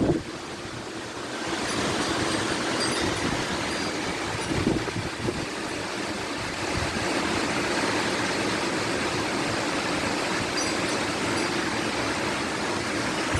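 Strong gusty wind rushing steadily, picking up about a second and a half in, with a low buffet of wind on the microphone about four and a half seconds in.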